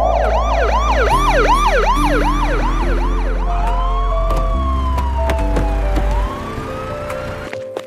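A siren sound effect. It starts as a fast yelp, about three quick whoops a second, then slows into a long rising and falling wail near the middle. Background music plays under it, and its bass drops out about six seconds in.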